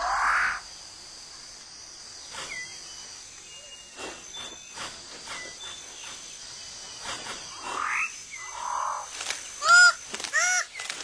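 Tropical rainforest ambience: a steady high insect drone with scattered short rising bird calls. Near the end comes a run of repeated honking calls, a little under two a second.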